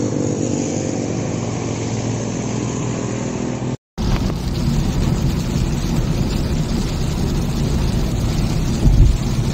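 A motorcycle engine running steadily. About four seconds in, the sound drops out for a moment and is replaced by the steady rumble and hiss of a car driving in heavy rain, heard from inside the cabin.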